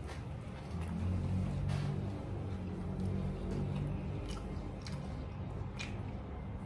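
People chewing and eating, with a few light clicks scattered through, over a steady low hum.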